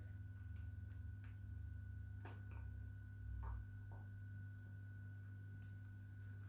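Quiet room tone with a steady low hum and a thin, steady high tone, broken by a few faint clicks and a soft low thump about three and a half seconds in as the plastic slime ball maker toy is handled.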